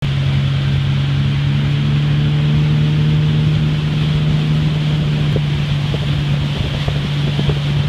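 Motorboat engine running at a steady pitch while underway at speed, over the rush of water and wind on the microphone.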